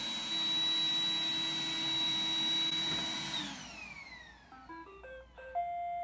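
iRobot Roomba robot vacuum running with a steady whine, its motors winding down in a falling whine about three and a half seconds in. It then plays a short tune of electronic beeps, the last note held, as it is sent back to its charging dock.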